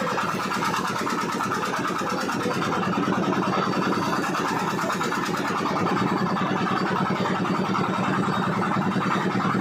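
An engine idling steadily with a rapid, even pulse.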